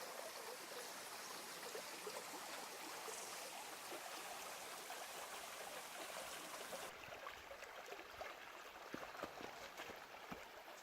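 Faint, steady rushing of a flowing stream.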